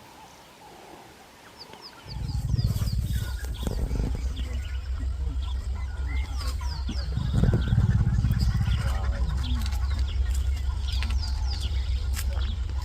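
Birds chirping in short repeated notes, joined about two seconds in by a loud, steady low rumble that continues throughout.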